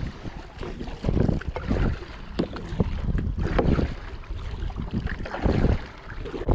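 Strong, gusty wind buffeting the microphone, swelling and easing every second or so.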